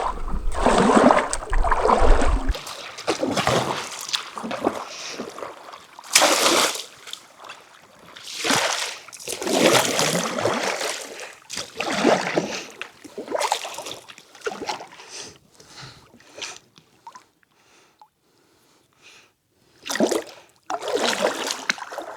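Paddleboard paddle strokes pulling through lake water: a splashing swoosh every second or two, with a low rumble in the first couple of seconds. The strokes thin out, pause briefly near the end, then one more comes.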